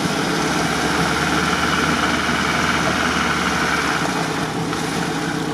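UAZ off-roader's engine running steadily at low revs as it is hauled forward through swamp mud on a taut winch cable; the engine note drops slightly about four seconds in.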